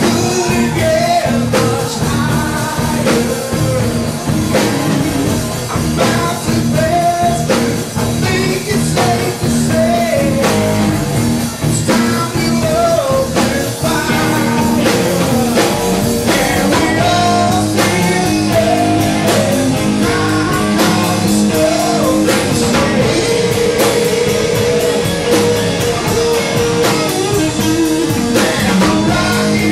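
Rock band playing with a lead singer, electric guitar and drum kit.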